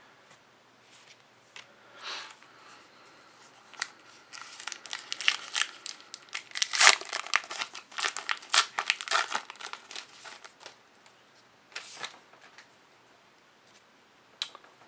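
Trading card pack wrapper being torn open and crinkled, with sharp crackling rustles in a dense run through the middle, loudest about seven seconds in, and a brief crackle again near the end.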